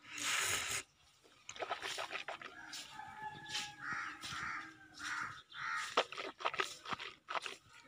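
Crows cawing repeatedly, with a short slurping sip from a mug right at the start and scattered small clicks.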